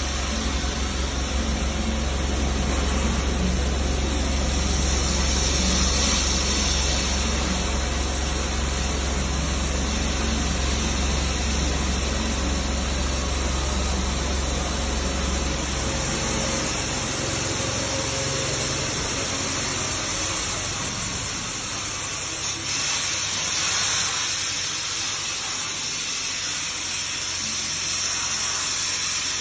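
Steady rushing hiss of air, typical of the compressed-air blower that keeps a liner inflated while UV lamps cure the resin. A low engine drone runs under it and fades away about 17 seconds in.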